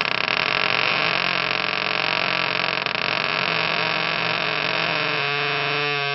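Wooden door hinge creaking in a long, continuous rasping groan; about five seconds in it turns into a clearer squeak that bends up and down in pitch.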